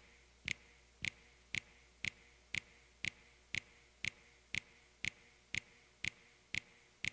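Steady, evenly spaced ticking, about two sharp ticks a second, over a faint low hum.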